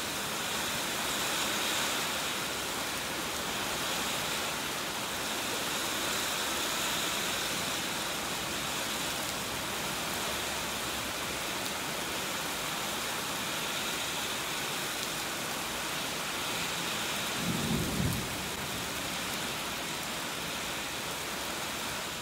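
Heavy rain pouring down steadily onto pavement and vehicles, with a brief low rumble of thunder near the end.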